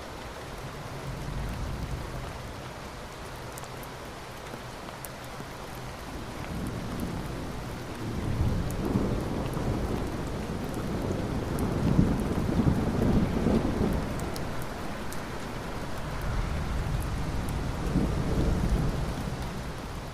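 Steady rain with rolling thunder. The deep rumble builds from about eight seconds in to its loudest stretch just past the middle, then swells once more near the end.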